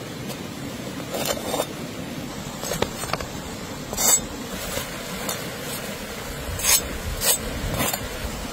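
Steady rush of a stream running over rocks, with a series of short, sharp scrapes and clinks of a steel knife blade spread through.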